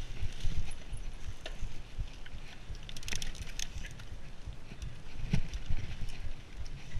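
Giant Anthem SX full-suspension mountain bike rolling fast over a rough dirt trail: a steady low rumble from the tyres and the ground, with scattered rattles and clicks from the bike. There is a brighter cluster of clicks about three seconds in and a sharp knock a little after five seconds.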